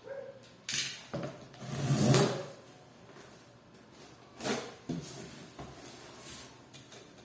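A series of separate knocks and rubbing sounds, like a plastic motorcycle headlight cowling being handled and set down.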